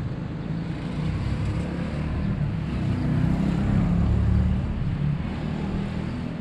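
A motor vehicle's engine passing by, its low rumble growing louder to a peak about four seconds in, then easing off.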